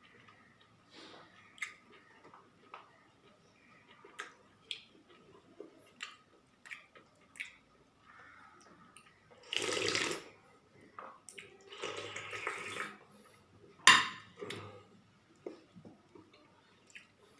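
Mealtime sounds at a plate: scattered small clicks and taps of tableware, two longer watery swishing sounds about ten and twelve seconds in, and a sharp clink a couple of seconds later.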